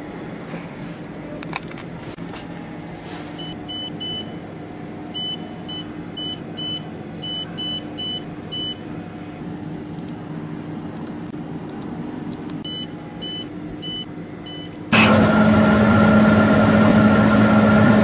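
Wheel repair lathe running with a low hum while its controls give a series of short, high electronic beeps in two bursts as the wheel's profile is measured. About three-quarters through, the lathe's spindle starts with a sudden loud, steady hum and cutting noise as the alloy wheel turns.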